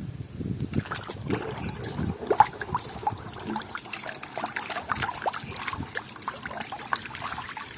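Water sloshing and trickling as a plastic toy vehicle is washed by hand in a basin, with light clicks and knocks of the toy against the water and the container. The splashing picks up about a second in.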